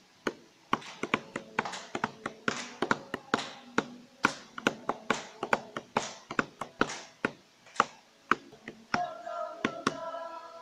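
A group's hand percussion: sharp claps and taps beating out a quick, even rhythm, about three or four a second. Near the end a few voices come in on a held note.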